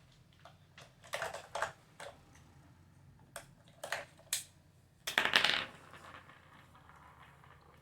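Hard plastic toy parts clicking and knocking as they are handled and pulled apart: a few scattered clicks, then a longer, louder rattle about five seconds in.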